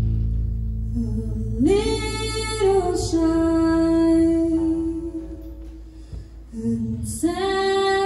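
A woman singing long held notes into a microphone, live over a soft band backing with a steady low bass. One phrase starts about a second and a half in, steps down and fades out past the middle, and a second phrase begins near the end.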